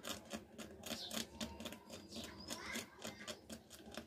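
Fine blade scraping lightly over paste-coated copper tracks on an LED TV panel's circuit board, a faint, quick, irregular scratching as the tracks are rubbed clean.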